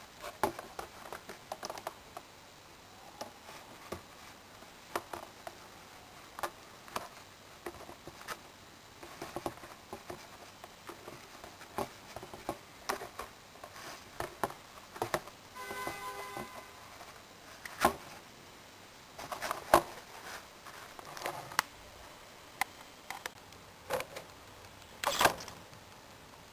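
Scattered clicks, taps and rustles of a foam RC model plane and its plastic water bag being handled. About sixteen seconds in comes a brief whine from the micro servo that works the water-release latch. A louder burst comes near the end.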